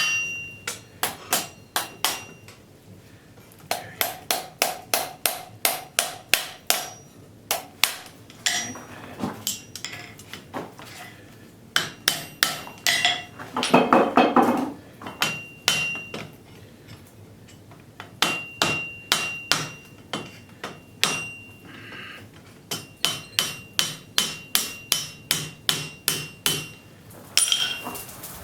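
Hand hammer striking a railroad spike on an anvil in quick runs of about four or five blows a second, separated by short pauses, each blow leaving a high metallic ring.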